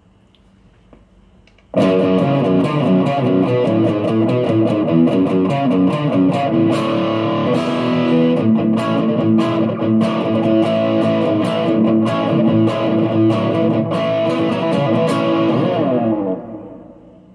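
Electric guitar played through a NUX Plexi Crunch, a Marshall Plexi-style crunch overdrive pedal: a distorted riff with sharp pick attacks, starting suddenly about two seconds in and dying away near the end.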